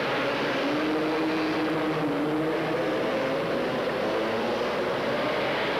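Several three-wheeler ATV engines running together during a race, their pitch wavering up and down.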